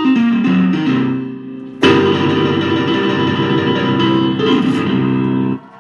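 Guitar playing: a run of notes stepping down in pitch, then a loud strummed chord about two seconds in that rings on and changes near the end before stopping abruptly.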